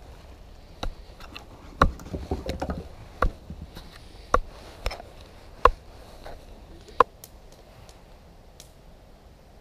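Fixed-blade Farnhawk knife stabbed point-first into a sawn wooden stump again and again: about seven sharp knocks at irregular intervals over the first seven seconds, then they stop.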